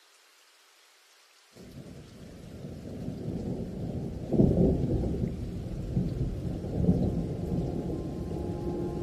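Thunderstorm: low rolling thunder over rain. It starts suddenly about a second and a half in, builds, and surges loudest around the middle. Steady musical tones come in near the end.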